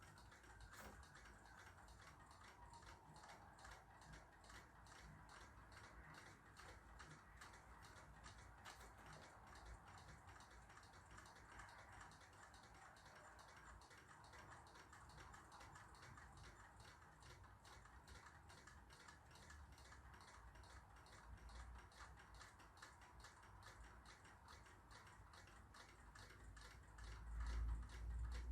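Near silence with a clock ticking steadily and evenly in the room. A few low thumps of handling come near the end.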